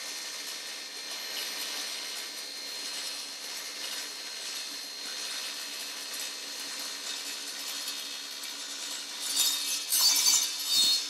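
Table saw running with its blade raised up through a wooden drawer, cutting through the drawer's side: a steady high-pitched whine and cutting noise that grows louder and harsher about nine seconds in.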